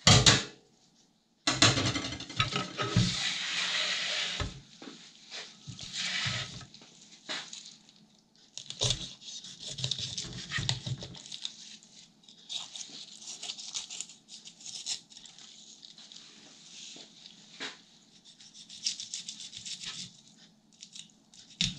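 Knife cutting and scraping through the scaled skin and flesh of a corvina on a wooden cutting board: irregular scratchy strokes with pauses, and a few sharp knocks of the blade or tools on the board.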